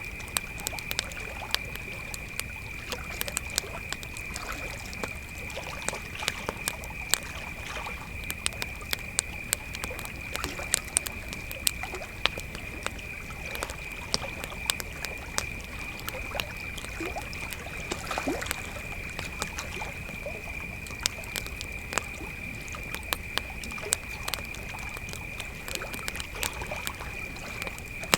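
Crickets trilling in one steady, unbroken high note, with a campfire crackling in frequent sharp irregular pops over it. A low wash of lapping lake water lies underneath.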